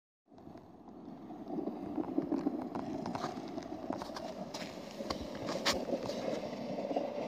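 Plastic sled sliding over packed snow and ice: a steady scraping hiss that grows louder as it comes closer, with scattered clicks and knocks from bumps.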